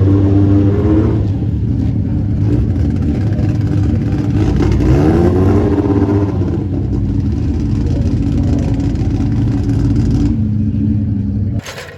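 Ford Escort Mk2's Millington Diamond four-cylinder race engine running, with the revs rising about five seconds in and then holding steady. The sound cuts off abruptly near the end.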